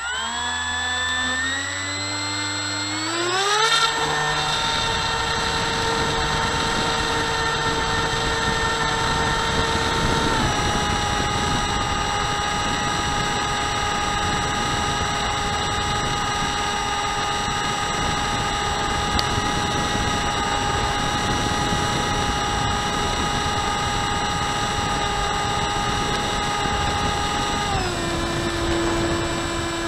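Electric motor and propeller of an RMRC Penguin FPV plane, heard from the onboard camera. It is a whine that rises in pitch over the first few seconds as the throttle opens for takeoff, then holds steady with wind rushing past. The pitch drops a step about ten seconds in and again near the end as the throttle is eased.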